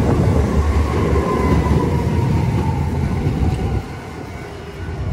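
Hiroden 3900-series "Green Liner" articulated tram running past close by: a loud rumble of wheels on rail with a motor whine falling in pitch. The rumble drops away sharply near the end. Strong wind buffets the microphone.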